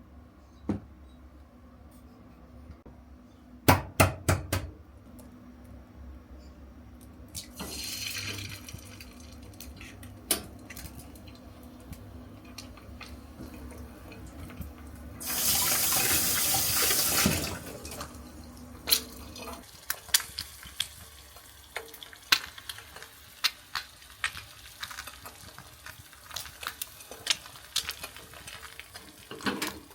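Kitchen sink tap running for about two seconds midway, among clinks and knocks of dishes and utensils being handled, with a low steady hum that stops about two-thirds of the way through.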